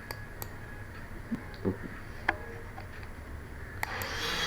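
A computer mouse clicking four times, a few sharp separate clicks, over a low steady hum.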